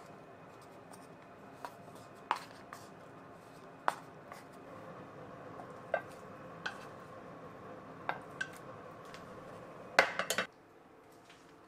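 Light clicks, scrapes and knocks of wooden utensils against a wooden bento box, a frying pan and a ceramic dish as rice is packed and a hamburg steak is lifted out of the pan. There is a faint steady hum underneath. A quick cluster of louder knocks comes about ten seconds in, and the hum stops right after it.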